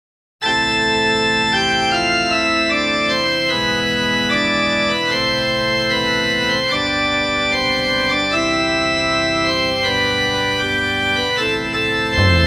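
Organ-sounding keyboard intro of a heavy metal song: sustained chords that change every second or so. Near the end, drums and guitars begin to come in.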